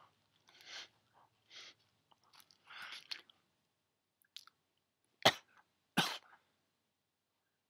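A person making soft chewing and mouth noises, then coughing twice sharply a little past the middle.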